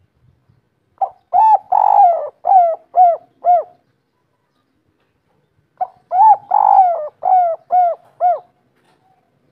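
Spotted dove cooing twice, each phrase two short notes, one longer note and then three short closing notes: the 'kuk 3' song type prized by Indonesian dove keepers.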